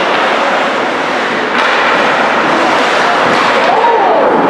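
Steady din of an ice hockey game: skates on the ice and voices of players and spectators, with a sharp knock a little after a second and a half in and a single shouted call rising and falling in pitch near the end.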